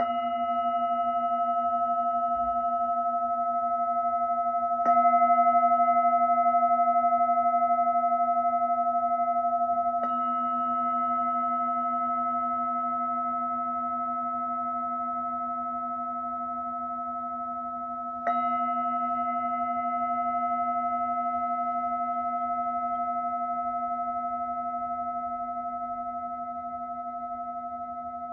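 An 18 cm, 1 kg 'tiger semi-gold' singing bowl pitched at A (about 235 Hz) struck four times, each strike renewing a long, slowly fading ring of several steady overtones; the third strike is lighter than the others.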